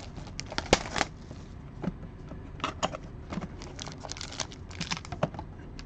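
Crinkling and rustling of trading card pack wrappers as packs are handled and pulled from a hobby box: irregular short crackles and ticks, the loudest about a second in.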